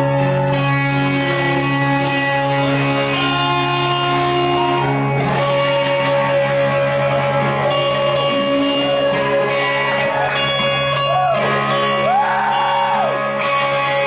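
Live rock band playing: electric guitars hold ringing, sustained notes over a steady low drone, with gliding, bent notes weaving above.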